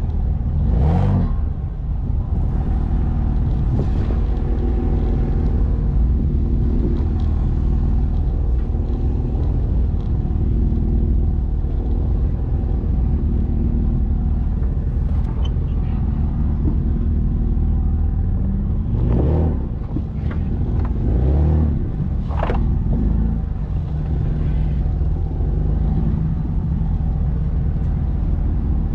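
Jeep engine running at low speed while crawling over a sandy dirt trail, heard close to the rear tyre, with a heavy low rumble. A few brief louder rushes of noise come about a second in and again around two-thirds of the way through.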